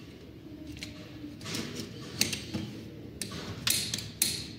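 Screwdriver tip clicking and scraping on the solder joints of a computer power supply board while shorting the large primary capacitors to discharge them. The clicks come irregularly and grow louder and more frequent from about halfway.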